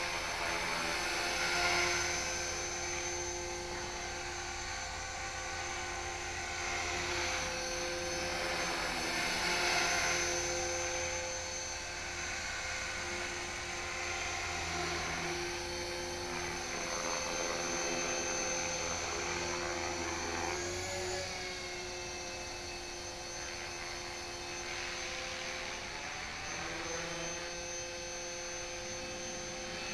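HK-450GT electric RC helicopter in flight: the brushless motor's steady whine and the rotor blades' hum. The pitch wavers briefly about two-thirds of the way through.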